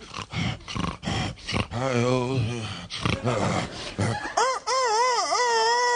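A man making vocal sound effects into a microphone. First comes a quick run of clicks, then a low wavering vocal sound. About four seconds in, a loud high warbling call starts and then settles into a long held tone.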